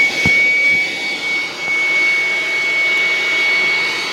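Electric air pump running steadily with a high whine, inflating an air mattress. There is a brief knock just after the start.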